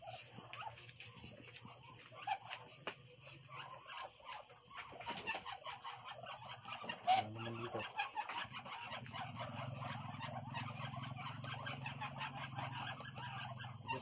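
A roosting chicken, disturbed in the dark, gives scattered short clucks, with one louder squawk about seven seconds in. A steady high-pitched drone runs underneath, and a low hum comes in from about nine seconds.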